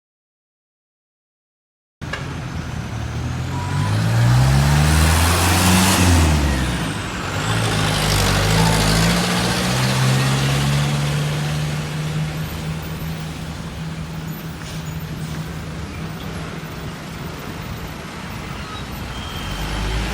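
A large bus driving past close by. Its engine note rises and falls, with a rush of tyre and air noise loudest about six seconds in, after which the engine hum goes on steadily. The first two seconds are silent.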